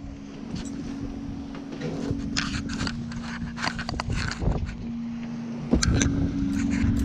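Knocks, clicks and scrapes of someone climbing a sailboat's wooden companionway and handling gear, over a steady low mechanical hum. About six seconds in, wind and rushing sea noise get louder.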